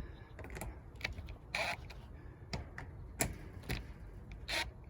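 Irregular light clicks and a couple of short scrapes from a deadbolt's mounting screws being driven in by hand with a screwdriver.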